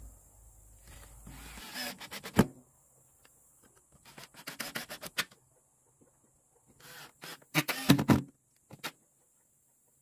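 Wooden planks scraping and knocking against each other as they are handled and fitted, in three short spells with sharp clicks and a single knock near the end.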